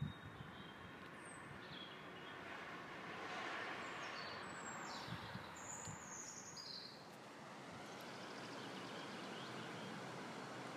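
Faint outdoor ambience: a steady rushing hiss, with a few short, high bird chirps over roughly the first seven seconds.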